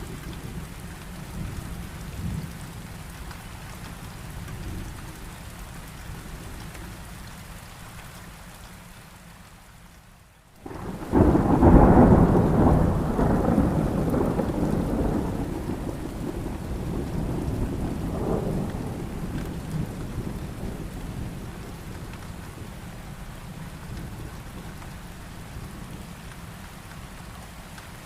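Heavy rain falling steadily. About ten seconds in the sound drops away for a moment, then a loud thunderclap breaks in and rumbles on for several seconds, swelling once more a few seconds later before fading back under the rain.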